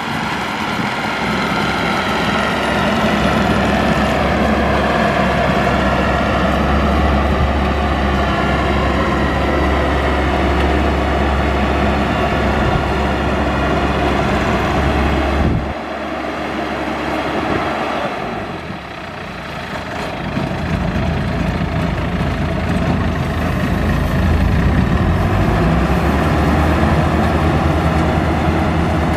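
Maxxi Bimo Xtreme combine harvester running steadily at working throttle while harvesting. The level dips for a few seconds a little past halfway, then climbs back up.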